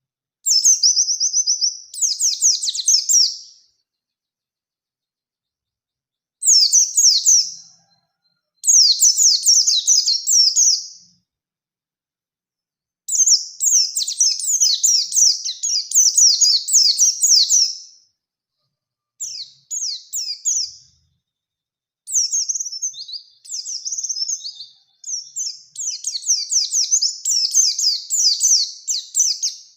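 White-eye (pleci) singing: bursts of rapid, high twittering song one to five seconds long, separated by short pauses, with the longest run in the middle and a long run near the end.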